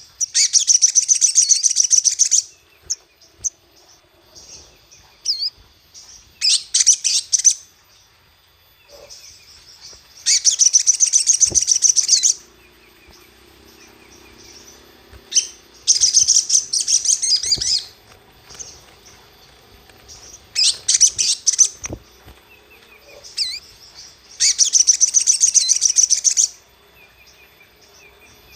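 Crimson sunbird (sogon) singing in loud, rapid, high-pitched bursts of about one to two seconds, repeated every four to five seconds, with short single chirps in between.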